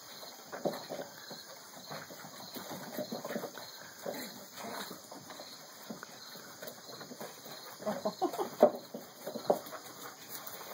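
Boston terrier puppies and their mother play-wrestling: a run of short dog noises and scuffles on wooden boards, busiest and loudest around eight to nine and a half seconds in.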